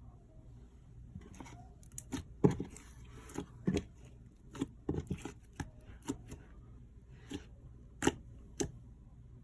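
Slime being squeezed and poked by hand, giving irregular sharp clicks and pops.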